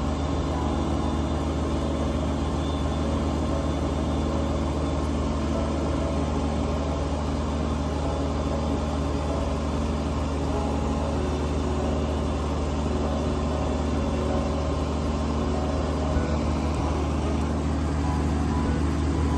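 Kubota BX2380 sub-compact tractor's three-cylinder diesel engine running steadily under load, driving a front-mounted Kubota BX2816 snowblower as it cuts through deep snow and throws it from the chute.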